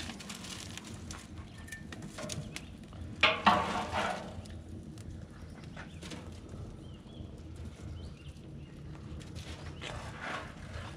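Fire poker knocking and scraping against burning logs and the steel firebox of an offset smoker as the fire is stirred, with the loudest knocks in a cluster about three seconds in.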